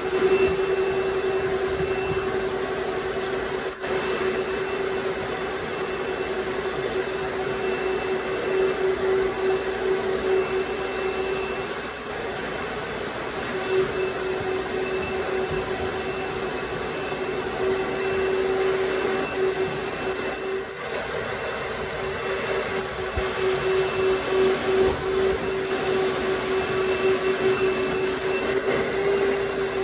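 Electric blower motor running steadily: a whine that holds one pitch over rushing air, dipping briefly a couple of times.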